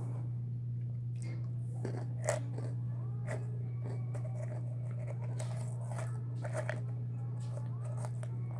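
A person chewing and crunching food close to the microphone, with scattered crackly bites, over a steady low electrical hum.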